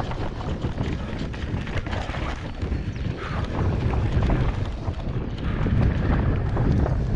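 Mountain bike riding down a dirt forest trail: wind buffeting the microphone, with tyres rumbling over dirt and roots and the bike rattling and knocking over the bumps.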